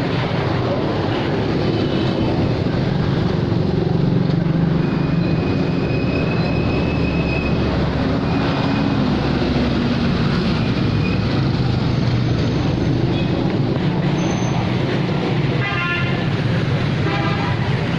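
Street traffic: motorcycle and auto-rickshaw engines running close by, a steady dense din.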